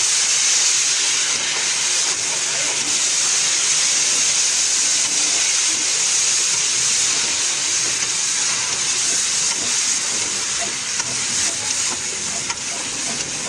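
Steam locomotive letting off steam: a loud, steady hiss, played from an old vinyl record with faint clicks.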